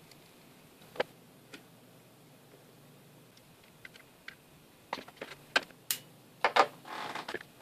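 Handling noises at a workbench: a sharp click about a second in, then light ticks and a run of louder clicks and knocks as the tool and the metal axe head are put down on the desk and a ceramic plate. A short scraping rustle follows near the end.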